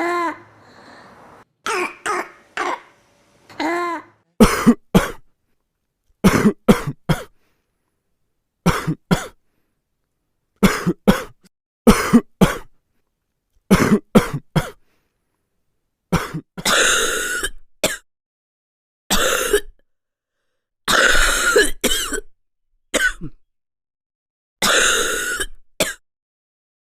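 A young child coughing in short bouts of one to three coughs, with gaps of dead silence between them. Later the coughs become longer and rougher.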